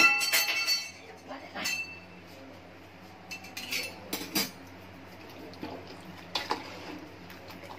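A metal spoon stirring vegetables in liquid in a stainless steel pot. It strikes the pot's rim with a loud ringing clink at the start, then taps and clinks against the side now and then.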